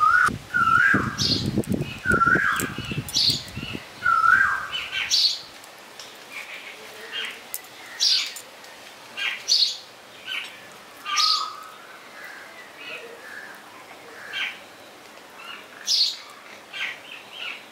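Birds chirping: repeated short chirps and quick high notes every second or two, with a low rustling in the first few seconds.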